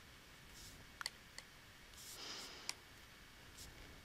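Faint, scattered clicks of a stylus tapping on a tablet screen during handwriting, about five in all, with a soft brush of noise a little after the middle.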